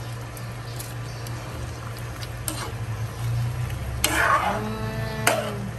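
Metal ladle stirring pork pieces in an aluminium pan of simmering vinegar broth, clinking now and then against the pan's side, over a steady low hum. A brief voice sound comes in about four seconds in.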